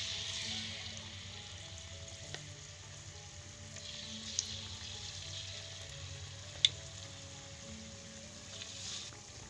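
Battered banana pieces sizzling in hot oil in a wok, the hiss swelling each time a new piece is dropped in: near the start, about four seconds in and near the end. A few sharp clicks of the metal spoon against the wok, with faint background music.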